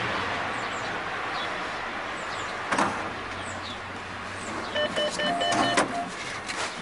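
Cash-machine (ATM) keypad beeps: a quick run of short electronic beeps as keys are pressed, starting about five seconds in, over steady street noise, with one sharp click near three seconds.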